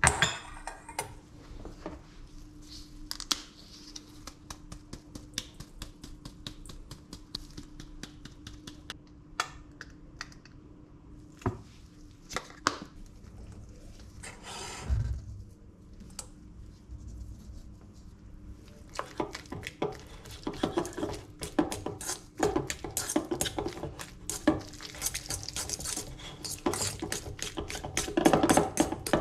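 Fork clinking and scraping against a stainless steel bowl while boiled eggs are mashed and stirred. Scattered clicks at first, then fast, continuous clinking from about two-thirds of the way in, over a faint steady hum in the first half.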